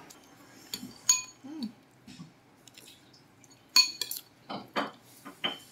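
Metal spoon clinking against a ceramic bowl of noodle soup while eating: two ringing clinks, about a second in and near four seconds in, with softer scrapes in between.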